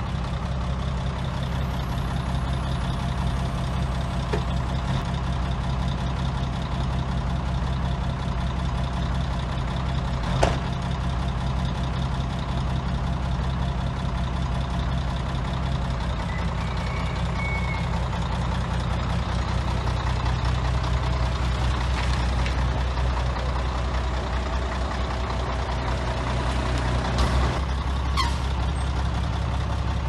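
Heavy diesel engine of construction machinery running steadily, its note shifting slightly partway through. A sharp knock about ten seconds in, and a few lighter knocks near the end.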